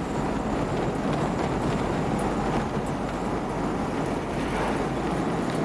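Steady engine and road noise of a moving bus, heard from inside the cabin, with a strong low rumble.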